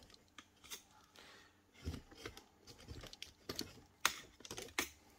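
Faint, irregular light clicks and taps, a handful of them scattered across the stretch, like small hard objects being handled.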